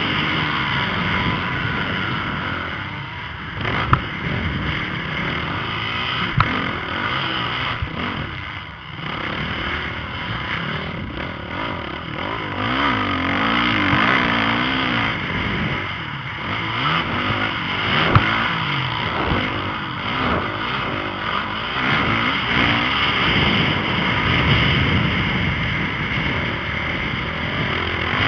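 Motocross dirt bike engine revving up and down continuously as it rides the track, heard from a camera on the bike or rider, with a few short sharp knocks along the way.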